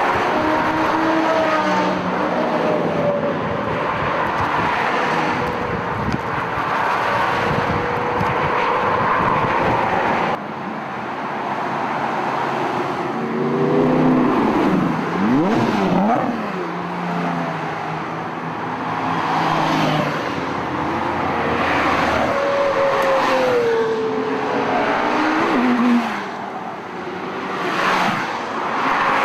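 Exotic sports car engines on a highway. At first comes the steady drone of engines and road noise from a moving car. About ten seconds in it changes to cars passing a roadside spot one after another, each engine note rising and falling in pitch as it goes by.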